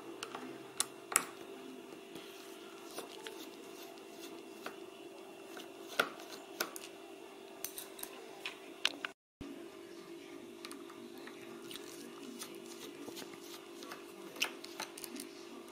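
Small screwdriver working the screws out of a laptop's plastic display bezel: scattered light clicks and taps of metal on screw and plastic, over a steady low hum. The sound cuts out briefly about nine seconds in.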